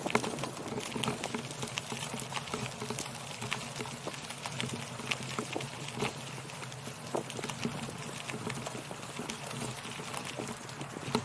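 Bicycle tyres rolling over a gravel path: a continuous gritty noise with many small, irregular clicks from loose stones, over a steady low hum.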